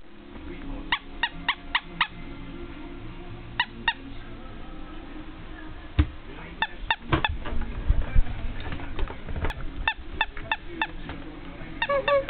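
Squeaky plush toy squeezed in quick runs of two to five short, sharp squeaks, repeated every few seconds, with some handling rumble around the middle.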